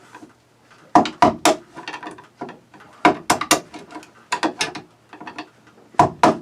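Screwdriver knocking out a small T-shaped knockout in a Fantastic Fan vent housing: sharp clicks and knocks in quick clusters of two or three, about four clusters.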